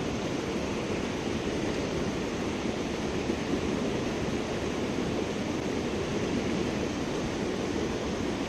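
Rushing water of a small mountain trout stream, a steady even wash of noise.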